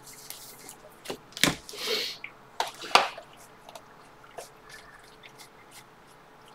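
Stack of Bowman Draft baseball cards being flicked through by hand: card stock clicking and sliding, with a few louder snaps between one and three seconds in.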